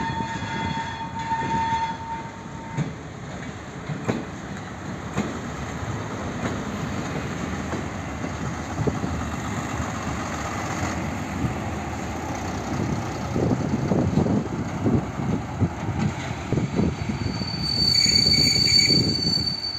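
WM-15A track motor trolley and its ballast hopper wagon rolling past: a steady rumble of wheels on rail with irregular clicks and knocks over joints and points. A held high tone lasts about three seconds at the start, and near the end a loud high-pitched wheel squeal sounds for about two seconds as the wagons take the curve.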